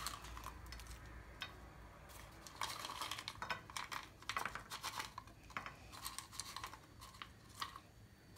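Roasted nuts and raisins tipped from a bowl and spread by hand over a platter of rice: a run of light clicks and rattles that starts a few seconds in.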